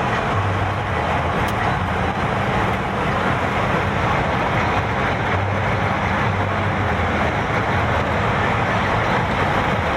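Car driving along: a steady low engine hum under even road and wind noise.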